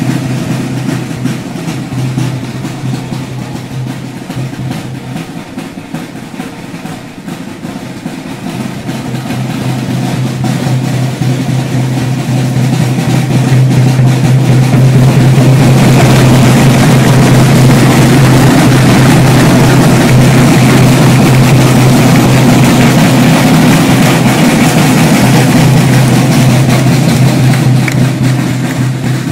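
A corps of marching snare drums played together in fast, dense strokes. It grows louder over several seconds in the first half, then holds loud and eases off slightly near the end.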